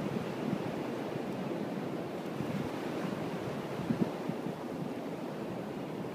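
Surf breaking and washing ashore in a steady rush, with wind buffeting the microphone.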